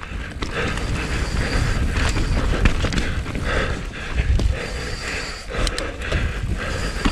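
Bird Aeris AM9 29er enduro mountain bike riding fast down a rough dirt forest trail, heard from a helmet camera: tyre rumble over the ground, clicks and knocks from the bike's chain and frame over bumps, and wind on the microphone. The rider's hard breathing comes through about once a second.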